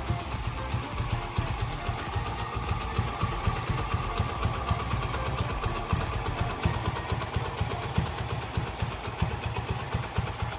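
Honda XRM125's single-cylinder four-stroke engine, built up to 146 cc with a 57 mm block, idling steadily through an aftermarket X6 Exos exhaust pipe, a fast even run of exhaust pulses.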